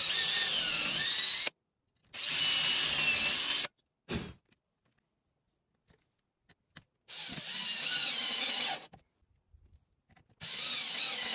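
Cordless drill running in four short bursts of one to two seconds each, its motor whine gliding in pitch. The first two bursts are the drill boring countersunk pilot holes into softwood with a countersink bit. The last two, quieter, are the drill driving wood screws into the holes. There is a short low knock between the second and third bursts.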